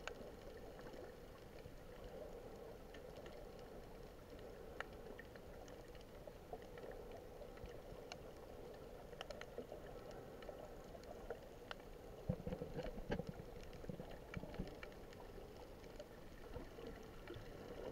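Underwater sound picked up by a camera's waterproof housing while snorkelling over a coral reef: a faint steady murmur with scattered faint clicks, and a few heavier low thumps about twelve to fifteen seconds in.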